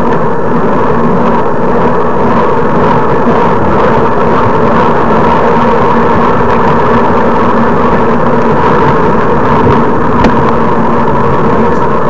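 Wind and road noise loud on a handlebar-mounted camera's microphone as the bicycle rolls along, steady with a constant hum, and a single sharp click about ten seconds in.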